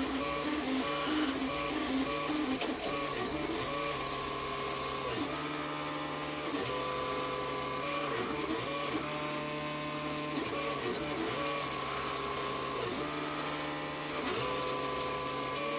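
A 3D printer's stepper motors running, giving a steady whine that holds one pitch for a second or two, then slides or steps to another as the moves change.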